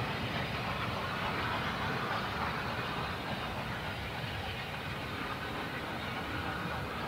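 A steam-hauled passenger train running away into the distance, the rumble of its coaches' wheels on the rails slowly fading.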